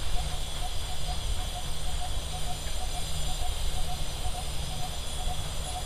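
Steady outdoor hiss with a low rumble, and a short high chirp repeating about two to three times a second.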